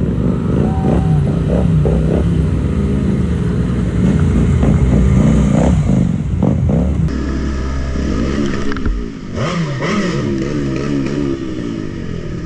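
Several motorcycles and scooters riding past one after another on a wet road, their engines revving up and down together. About seven seconds in the sound changes abruptly to one motorcycle engine heard close from its own seat, running steadily at low speed with a few gentle revs.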